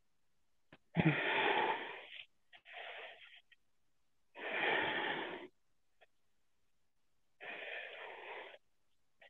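Heavy breathing of a person holding a deep yoga lunge with a twist: four long, noisy breaths of about a second each, with short pauses between.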